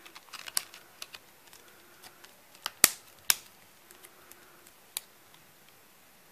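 Plastic back cover of a Samsung Galaxy S4 being snapped onto the phone: scattered sharp clicks as its clips are pressed home, the two loudest about three seconds in, half a second apart.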